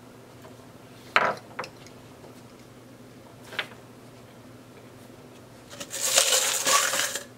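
Small hand tools clicking down on a wooden workbench: a sharp click about a second in, a fainter one just after, and a soft tap a couple of seconds later. Near the end comes about a second and a half of loud rustling handling noise as a plastic glue bottle is picked up and handled.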